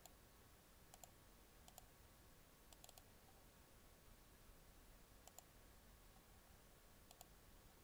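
Near silence with a few faint, scattered computer mouse clicks, a couple of them in quick pairs.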